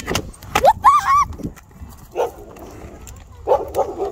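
A dog whining: a rising whine about half a second in, then two short high cries just after. Under it is a low rumble of roller-skate wheels rolling over the sidewalk, with a few sharp clicks.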